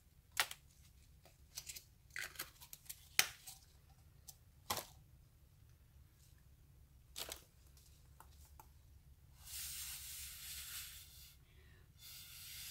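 Scattered light clicks and crinkles in the first few seconds, then air blown through a rubber straw onto wet resin: a hiss of about two seconds past the middle and a shorter one of about a second near the end.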